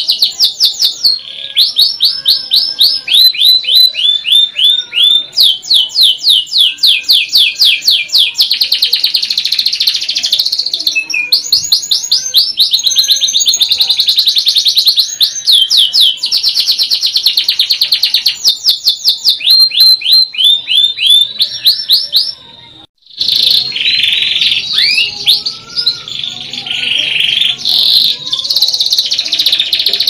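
Domestic canary singing a long, continuous song of rapid rolling trills, each phrase a fast run of repeated high notes that gives way to the next every second or two. The song breaks off briefly about three-quarters of the way through, then goes on.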